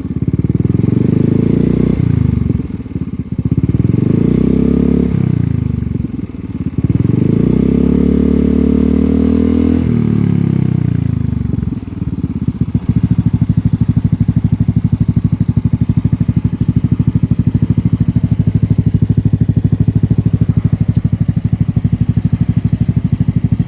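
Yamaha Mio M3 scooter's 125 cc single-cylinder four-stroke engine breathing through a Ronin Hanzo aftermarket muffler set to racing mode, revved gently in several short blips that rise and fall during the first twelve seconds. It then settles into a steady idle with an even exhaust pulse.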